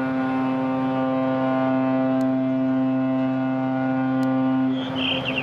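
Ship's whistle of the Shin Nihonkai Ferry Suzuran, one long steady blast that cuts off near the end. It is sounded as a salute in reply to a UW flag and a waved hat.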